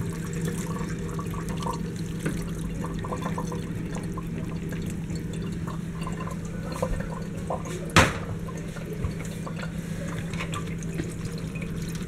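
Cooked ground beef and its grease being tipped from a pan into a plastic colander in a sink, with a spoon scraping and tapping against the pan, over a steady low hum. One sharper knock comes about eight seconds in.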